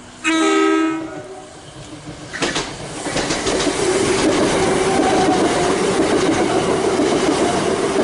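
Southern Class 377 Electrostar electric multiple unit sounding a short horn blast of just under a second, then running through the station at speed: a rising rush of wheel and rail noise with rapid clicks over the rail joints and a steady motor hum.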